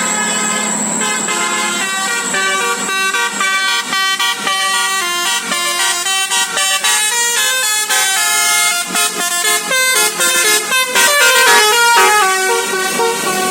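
A bus's basuri musical air horn ("telolet basuri") playing a quick melody of held notes that step up and down one after another, growing busier and loudest near the end.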